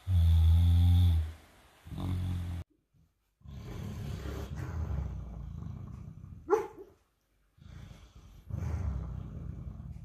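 Sleeping Great Dane–mastiff cross snoring and making dream noises: a loud deep vocal sound in the first second and a shorter one about two seconds in, then rough snoring breaths, with a brief high yelp about six and a half seconds in.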